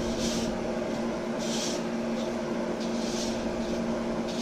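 Hands tossing fish fillets in dry breading in a plastic bowl make a soft gritty rustle about every second and a half. Under it runs the steady hum of a stove vent fan.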